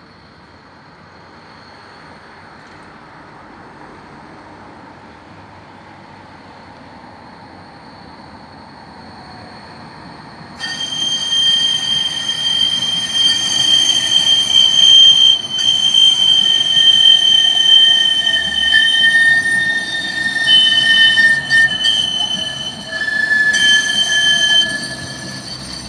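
Tram wheels squealing on the rails: a rumble grows for about ten seconds as the tram approaches, then a sudden, loud, high-pitched squeal of several steady whistling tones sets in and holds for about fifteen seconds, wavering and breaking briefly before it drops away near the end. It is the squeal that watering the track is said to cure.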